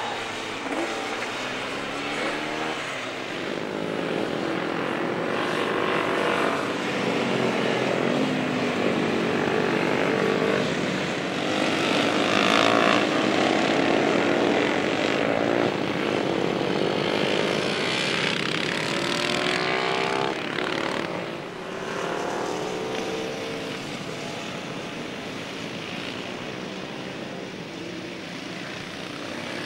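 Classic racing motorcycles passing one after another at speed, their engine notes rising and falling in pitch as each goes by. The loudest pass comes about halfway through.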